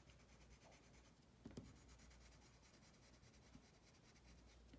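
Faint scratching of a colored pencil shading across drawing paper, with one small tap about a second and a half in.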